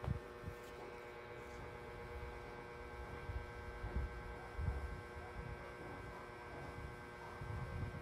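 A steady electrical hum, with soft irregular low thumps and rubbing close to the microphone.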